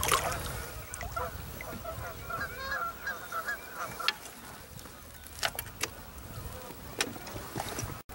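A loud splash as a big flathead catfish thrashes at the side of a jet ski, then a run of short honking bird calls and a few sharp knocks.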